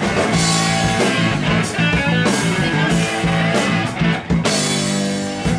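Live blues-rock power trio playing: electric guitar over bass guitar and a drum kit, with drum and cymbal hits throughout.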